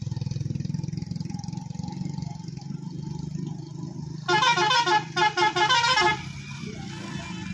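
Motorcycle engines run close by, then a truck's multi-tone horn sounds in a quick run of short blasts that change in pitch, beginning about four seconds in and lasting about two seconds. The horn is the loudest sound.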